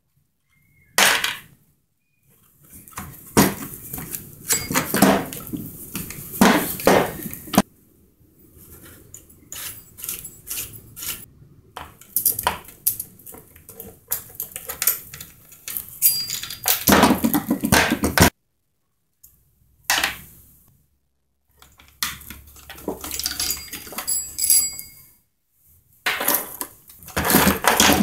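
Irregular clatter of a chainsaw being taken apart by hand on a workbench: plastic housing and metal parts knocking and clinking, tools set down on the bench, in bursts with short pauses.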